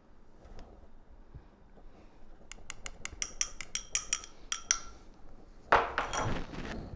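A metal marinade injector needle tapping and scraping against a small glass bowl: a quick run of light clinks, about five a second, then a louder clatter as the injector and bowl are set down on the wooden table.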